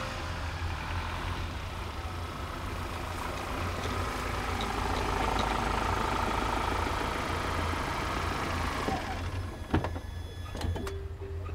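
Ford Ranger pickup truck driving slowly onto grass and pulling up, its engine running under a steady low hum with tyre and road noise. The noise eases off about nine seconds in, and a few sharp clicks and knocks follow near the end.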